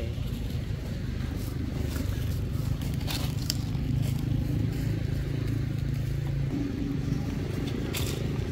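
Steady low rumble of a distant motor vehicle engine, with a few sharp clicks and rustles about 3 s and 8 s in.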